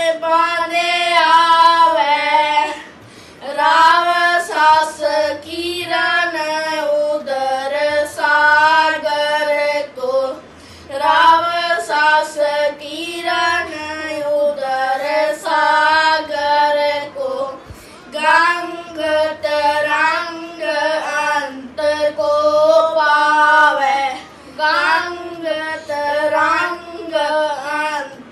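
Two boys singing a Sikh shabad together in long phrases that bend in pitch, with short breaks for breath between them.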